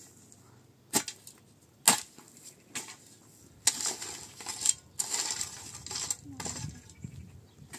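Three sharp knocks about a second apart, then a few seconds of rustling and scraping, like objects being handled and moved about.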